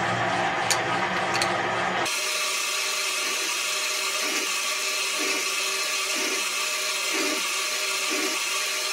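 Slotting machine cutting a keyway in the bore of a 40Kh steel gear blank, the ram stroking about once a second over a steady machine hiss. The first two seconds are a lower motor hum with a couple of clicks, which breaks off abruptly.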